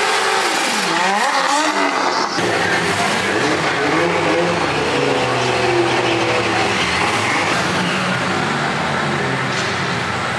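Drift car engine at high revs with tyre squeal, the revs dipping and climbing again as the car slides. About two seconds in, the sound cuts abruptly to a steadier, lower mix.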